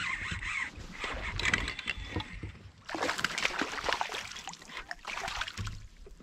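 Hooked bass splashing and thrashing at the surface right beside a kayak as it is fought in, the splashing heaviest from about three seconds in.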